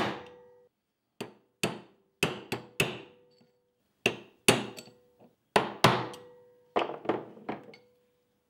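A hammer tapping a steel pin punch about a dozen times, in irregular pairs and threes, each strike a sharp metallic tap with a brief ring. The punch is working a tight internal circlip into the Series 3 Land Rover gearbox's rear main-shaft bearing housing.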